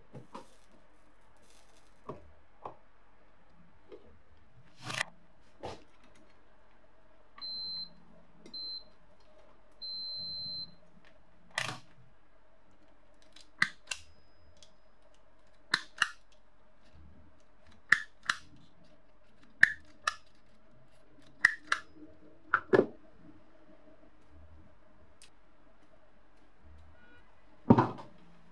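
A hand wire stripper snapping shut and open on a bare wire, a sharp click in quick pairs, about six times. Earlier come three high electronic beeps, two short then one longer, and near the end a louder knock.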